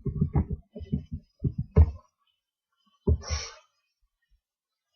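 A woman's sneeze about three seconds in: one short burst with a hissing tail that fades within half a second. It comes after a run of short, low thumps in the first two seconds.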